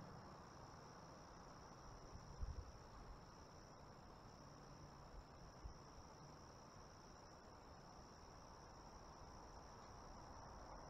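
Faint, steady high-pitched drone of insects such as crickets, held unbroken over a quiet outdoor hush. A brief low thump comes about two and a half seconds in.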